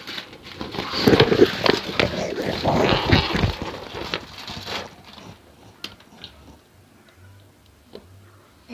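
Thin plastic packaging crinkling and rustling as a small item is unwrapped by hand, loudest in the first half. It then drops to faint handling with a few small clicks.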